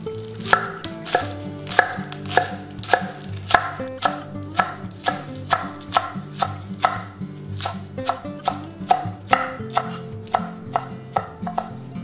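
Kitchen knife slicing green onion into thin rings on a bamboo cutting board: a steady rhythm of crisp chops, about two a second, quickening near the end.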